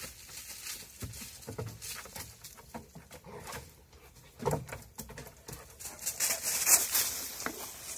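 Komondor dogs' paws knocking on a wooden platform and crunching through dry fallen leaves as they scramble and one leaps down, with a heavier thump about halfway through. The loudest crackling rustle of leaves comes near the end.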